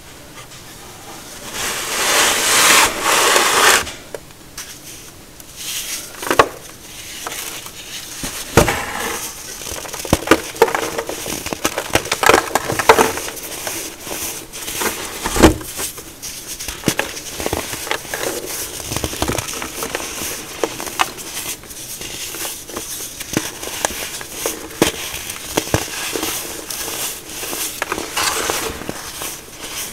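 Hands crushing and squeezing blocks of baking soda: a loud, dense crunch about two seconds in, then soft powdery crumbling and squeaking with irregular sharp crackles as the chunks break apart.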